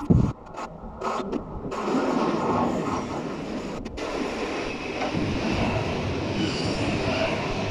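Z 24500 TER 2N NG electric multiple unit approaching and running in beneath the bridge: a steady rail and running rumble that builds up over the first two seconds and then holds. Wind gusts hit the microphone right at the start.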